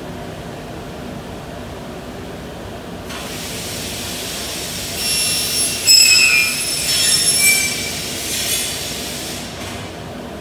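Glass cutter wheel scoring a glass sheet: a hiss starts about three seconds in and carries high-pitched squealing tones for several seconds, loudest about six seconds in, then stops sharply. A steady low workshop hum runs underneath.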